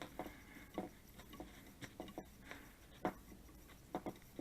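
Plastic wire nut being twisted onto two electrical wires by hand: faint rubbing with a scattering of small irregular clicks and taps.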